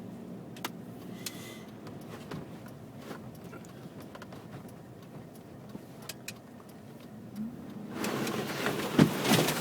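Car driving on the road, heard as a steady low rumble with scattered small clicks and knocks. About eight seconds in, a louder rush of noise comes in, with a sharp knock near the end.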